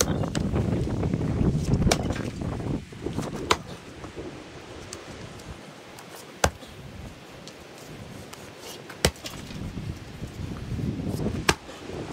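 Axe chopping into firewood rounds: five sharp strikes a couple of seconds apart.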